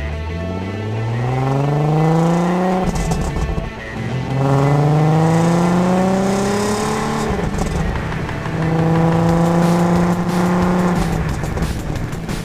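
Stock exhaust of a VW Golf R32's 3.2-litre VR6 engine under acceleration. The pitch rises through one gear, drops at an upshift about three seconds in, rises again through the next gear until another shift, then holds steady while cruising.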